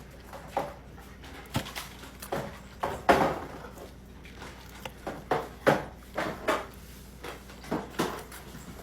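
A series of about a dozen short, irregular knocks and clatters, like things being handled and set down in a kitchen.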